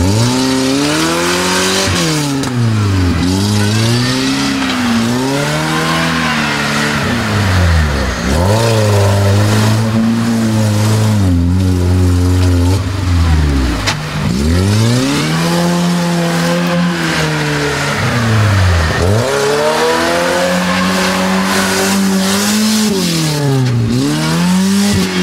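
Lada Niva engine revving hard again and again while the car is bogged in the mud trying to climb out. The pitch swoops up and falls back several times and is held high for a few seconds at a stretch, about a third of the way in and again after the middle.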